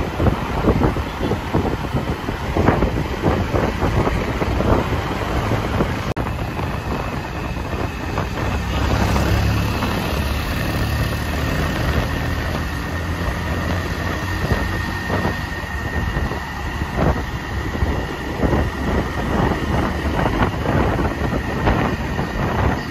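Road traffic: vehicle engines running, with wind buffeting the microphone and a heavier engine rumble about nine to twelve seconds in.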